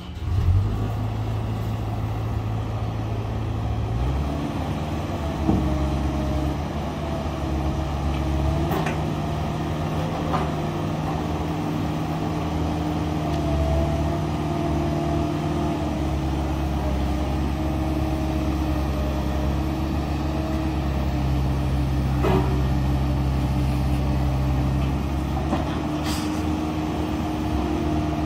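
Cat 305E2 mini excavator's diesel engine running steadily while the boom and bucket are worked. The engine speed steps up about four seconds in, and a few light clicks or knocks come through.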